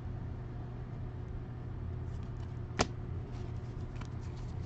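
Steady low background hum with faint handling of trading cards, and one sharp click a little under three seconds in.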